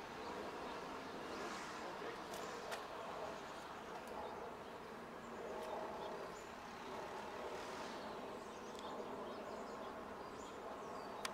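Faint, steady outdoor background hum with a few soft ticks, and no clear single source.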